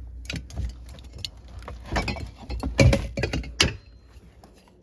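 A run of irregular clicks and knocks, like objects being handled, with the loudest knocks around three seconds in; the sounds die away to near quiet shortly before the end.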